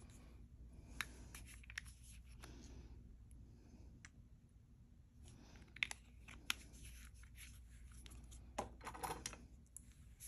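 Faint clicks and rustles of a gold-tone metal chain necklace being handled and turned over, with a cluster of small clinks near the end.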